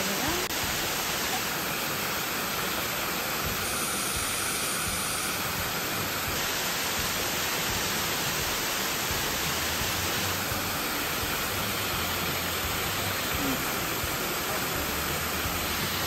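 Waterfall: a steady rush of water falling over rock.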